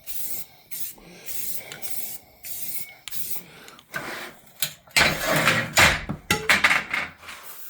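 Aerosol can of Rust-Oleum primer spraying in short hissing bursts with brief gaps, onto freshly welded steel that is still hot. About four seconds in, several louder, deeper bursts of noise take over.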